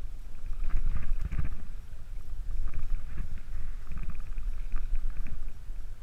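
Water lapping and sloshing close to the microphone in a strong current, in irregular surges, over a steady low rumble of wind on the microphone.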